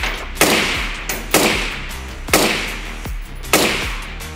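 Suppressed 5.56 NATO AR-style rifle fitted with a Troy Kryptos suppressor firing four single shots about one a second, each a sharp report that trails off quickly.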